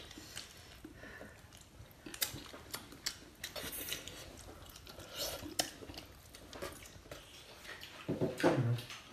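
People chewing and eating at a table, with scattered light clicks of chopsticks against porcelain bowls and plates.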